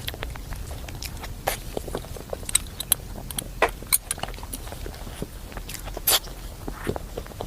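Close-miked eating of chocolate mousse cake: wet mouth and chewing sounds with irregular sharp clicks and smacks, the loudest a little after six seconds.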